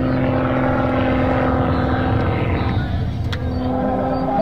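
Propeller airplane engine droning at a steady pitch. Its tone thins out for about a second a little past the middle, then returns. There is a single sharp click about three seconds in.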